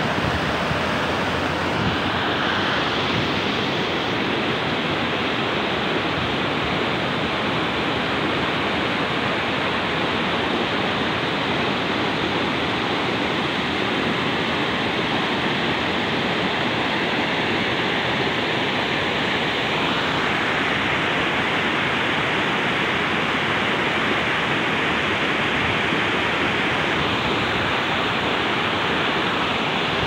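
Fast mountain stream rushing over rocks: a steady rush of white water.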